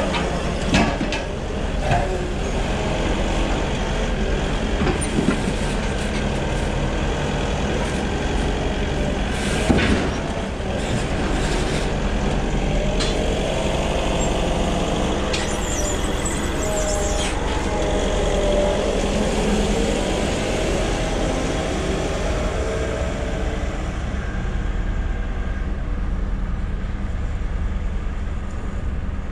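Forklift working at the side of a truck trailer: engine running, a couple of sharp knocks about a second in and again near ten seconds, and a whine midway while a pallet is lifted off the bed. A steady low rumble runs underneath, and the higher noise thins near the end as the forklift drives off.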